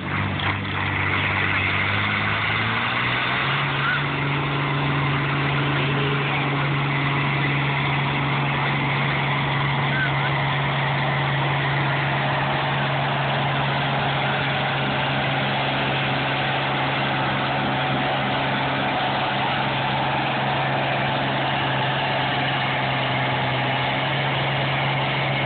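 Oliver 88 tractor's six-cylinder engine under full load, pulling a weight-transfer sled. Its pitch climbs over the first few seconds as it comes up to speed, then holds steady and loud for the rest of the pull.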